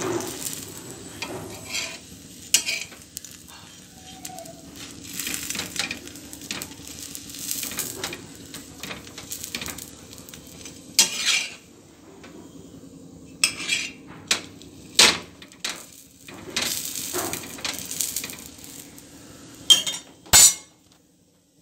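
A flat spatula scraping and tapping on a hot tawa griddle as a masala dosa is folded over its potato filling, over a light sizzle of the dosa cooking. The scrapes and clinks come at irregular intervals, the sharpest near the end.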